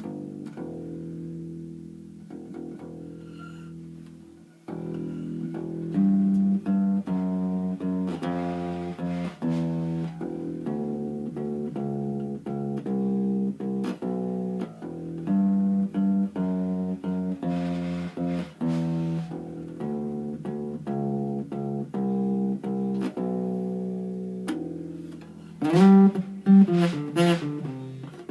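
Fender Kingman acoustic bass, fitted with a pinless ToneBar bridge conversion, being played: a held note rings out and fades, then a steady run of plucked notes follows, with a few louder plucks that slide in pitch near the end.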